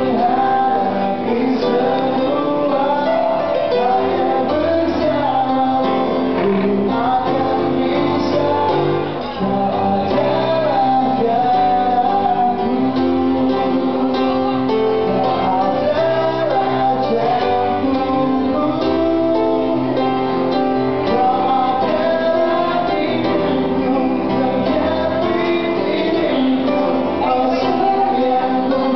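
A man singing an Indonesian pop ballad into a microphone, with guitar accompaniment.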